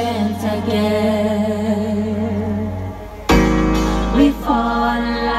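A woman singing into a microphone over a backing track played through a PA speaker. About three seconds in the music thins out briefly, then the bass comes back in strongly.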